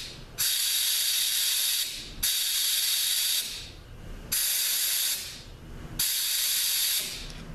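Compressed-air blow gun hissing in four bursts of about a second each, each starting sharply and tailing off. It is an air check of a 4L80E transmission pump: the air is blown through the pressure regulator valve orifice to stand in for oil pressure and show the end plug leaking.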